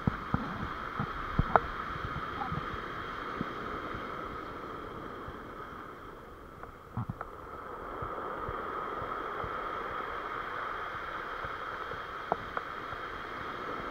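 Surf breaking and washing up a pebble beach, easing off midway and swelling again, with scattered sharp clicks and knocks from handling the rod and spinning reel.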